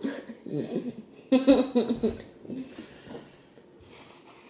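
People laughing and chuckling in a small room, two spells of laughter in the first half that then trail off.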